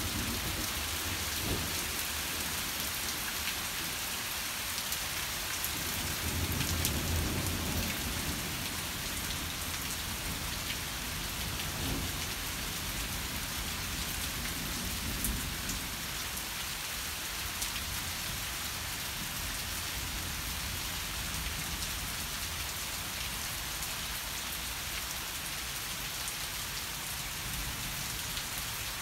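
Rain from a severe thunderstorm falling steadily, with thunder rumbling low several times in the first half, the loudest roll about seven seconds in.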